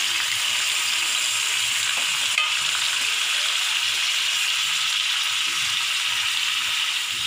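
Chopped tomatoes sizzling steadily in hot oil in a thick-bottomed metal kadai as a metal spoon stirs them, with one small click about two and a half seconds in.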